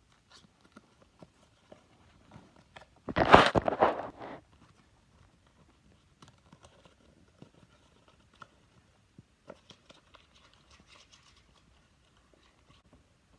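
A sheet of paper handled close to the microphone: faint rustles and small clicks, with one loud burst of crinkling lasting about a second, about three seconds in.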